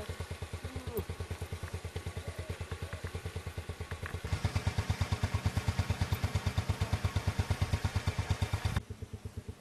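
Motorcycle engine idling with a rapid, even putter that grows louder about four seconds in, then turns much fainter near the end.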